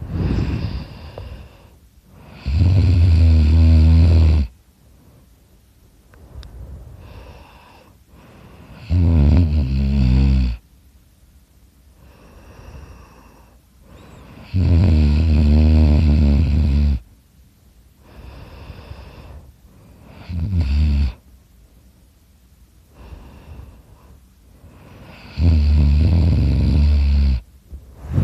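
A person snoring loudly in sleep: five loud, low buzzing snores, each one to two seconds long, about every five to six seconds, with quieter breaths between them.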